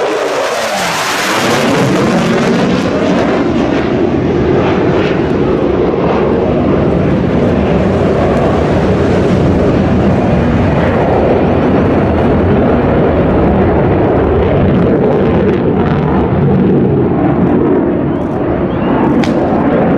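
Chengdu J-20 fighter's twin jet engines, a loud steady rumble as it flies a display overhead. In the first two seconds the noise has a sweeping, phasing whoosh and is at its brightest as the jet passes close, then settles into an even, lower roar.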